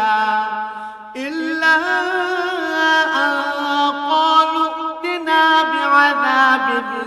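A man reciting the Quran in Arabic in a melodic, chanted style, holding long drawn-out notes. His pitch steps up about a second in and again about five seconds in.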